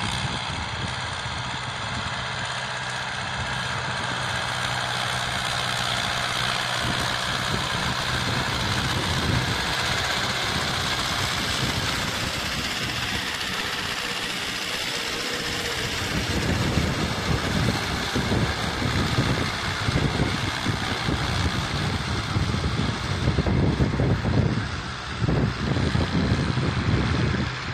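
Ursus C-360 tractor's four-cylinder diesel engine running steadily under load while pulling a cultivator, louder and rougher in the second half as the tractor comes close.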